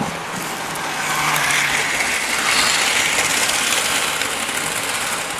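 Model train running along the track close by, its wheels and motor making a rolling rattle on the rails. It grows louder as the train approaches, is loudest around two to three seconds in as it passes, and then eases off.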